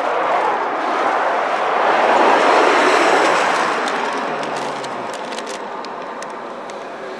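Road and engine noise of a moving bus, heard from inside, swelling to its loudest about two to three seconds in and then easing off. A few faint light rattles come through in the second half.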